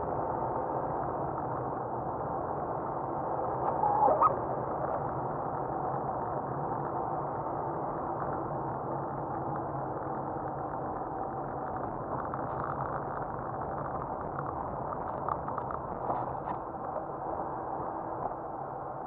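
Steady, muffled road and engine noise inside a car driving on a snow-covered road, as picked up by a dashcam microphone. Short creaking squeaks come through about four seconds in and again several times near the end.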